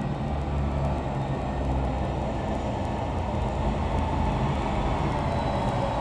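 Tractor diesel engine running steadily, a low even hum.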